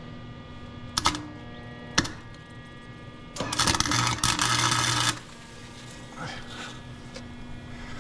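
Electric welding arc crackling in one short burst of under two seconds past the middle, preceded by two sharp clicks about a second apart, over a steady low hum. The arc is welding a car's rear differential gears solid.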